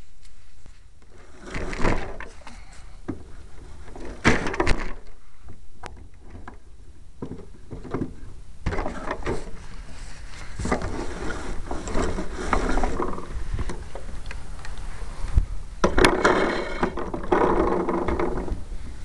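Irregular rustling, knocking and clicking on a model plane's onboard camera, over a steady low rumble. The clicks and rattles are loudest near the end, as the model is handled and picked up.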